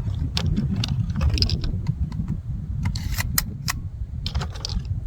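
Scattered sharp metallic clicks and rattles from handling a Mossberg 590A1 12-gauge pump shotgun, with a cluster of quick clicks a little past the middle. Steady low wind rumble on the microphone underneath.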